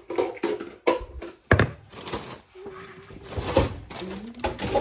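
Knocks and clicks of things being handled in a kitchen, with one loud thunk about a second and a half in.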